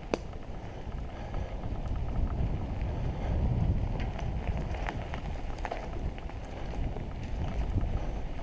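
Wind buffeting the microphone over the low rumble of a mountain bike rolling along a dirt trail, with a few sharp clicks and rattles from the bike.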